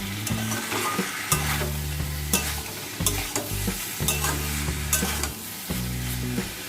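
A spatula stirring and scraping greens and vegetables in a pan of hot oil, with a steady sizzle and repeated sharp scrapes. The Malabar spinach curry is frying in only the water the greens give off, with no water added.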